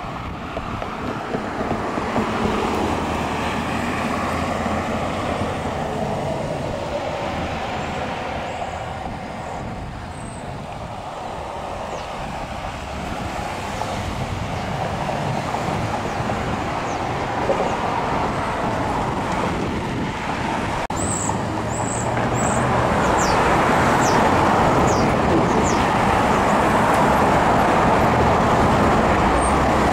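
Road traffic at a street intersection: cars and vans running and passing. The noise grows louder about twenty-two seconds in, with a few short high chirps just before and after.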